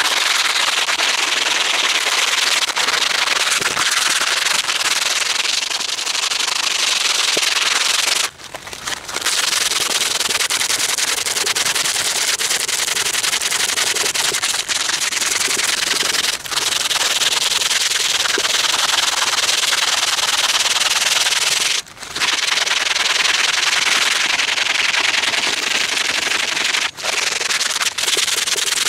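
Sandpaper rubbing steadily over a hand-carved wooden bowl, a continuous coarse hiss broken by a few short pauses.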